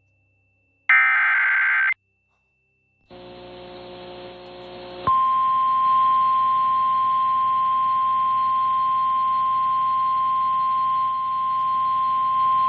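A NOAA Weather Radio alert starting. About a second in comes a one-second burst of SAME digital header data, a rapid two-pitch chirping. After a short gap there are about two seconds of receiver hiss with faint low tones, and then, about five seconds in, the steady single-pitch 1050 Hz warning alarm tone begins and holds.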